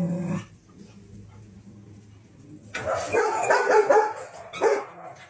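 Golden retriever barking in a quick string of barks, starting about three seconds in.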